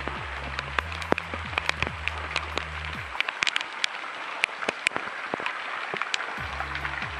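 Rain falling steadily: a constant hiss with many sharp, close drops splashing and dripping near the microphone.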